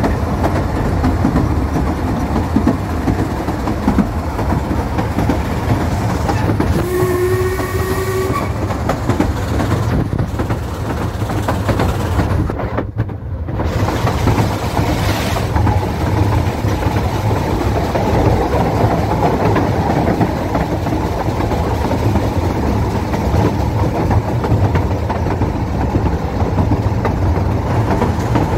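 Ffestiniog Railway narrow-gauge train running on the rails, a steady loud rumble, with a short whistle, slightly rising in pitch, blown once about seven seconds in.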